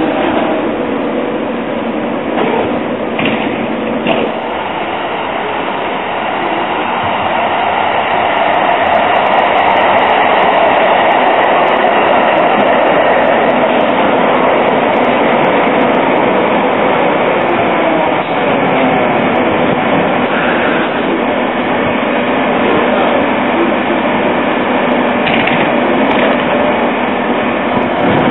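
Duewag Stadtbahn light-rail trains running through an underground station, a continuous loud rolling rumble that swells in the middle as a train passes close by. A whine glides in pitch near the start and again near the end as trains slow and pull away.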